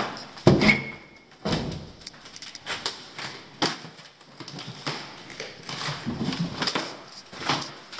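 Footsteps with irregular knocks and scrapes on a hard surface. The loudest is a thump about half a second in, followed by a short squeak.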